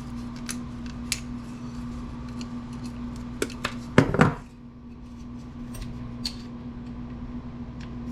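Small metal clicks and clinks of parts and tools being handled while an amplifier is taken apart, with a louder clatter about four seconds in. A steady low hum runs underneath.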